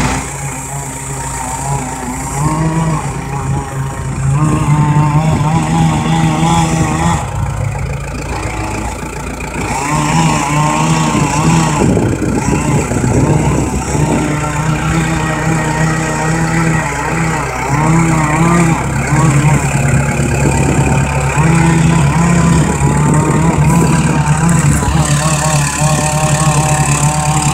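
Engine running throughout, its pitch wavering and shifting as the speed changes, quieter in the first couple of seconds and again briefly near the middle.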